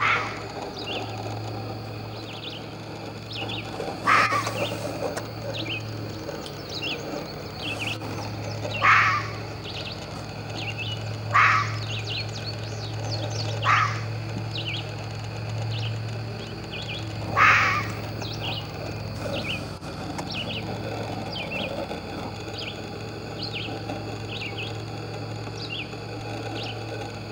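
Red fox barking: about six short, sharp single barks a few seconds apart, stopping about two-thirds of the way through. Small birds chirp throughout.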